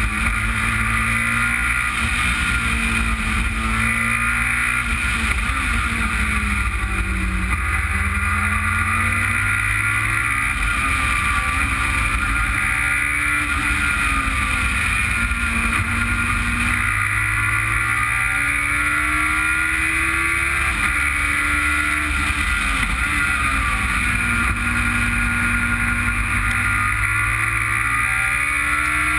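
Racing car engine heard from an onboard camera while lapping a circuit: the revs climb repeatedly and drop away, with steady wind rush over the car throughout.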